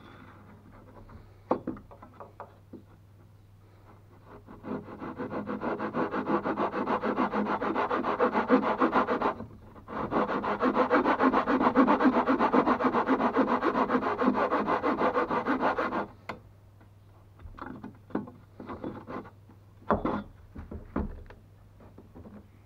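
Hand file rasping back and forth across wood in rapid, even strokes, in two long runs with a brief pause between them. Scattered knocks and taps of the tool and board come before and after.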